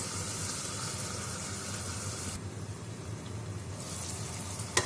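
Onions and tomatoes sizzling in oil under a glass lid in a clay pot: a steady soft hiss whose brighter part dulls for about a second in the middle. A short click near the end.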